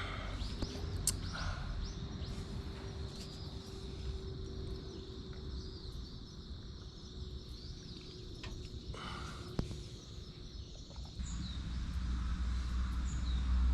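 Outdoor ambience with birds chirping and a few short clicks; a low rumble builds near the end.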